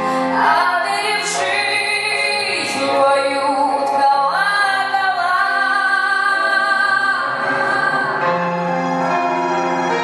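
A woman singing a song, holding long notes with vibrato over instrumental accompaniment; the voice drops out about eight seconds in and the accompaniment carries on.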